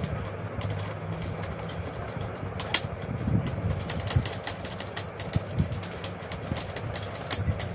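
Small metal chair-assembly bolts clicking and clinking as they are picked up, handled and set down one after another, over a steady low hum. The clicks come at an irregular pace, denser in the second half.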